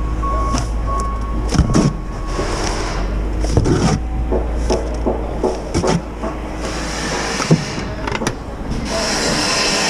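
Shovel scooping wet mortar out of a mortar tub and dumping it into a plastic bucket: repeated knocks and gritty scrapes, with a low rumble under the first half.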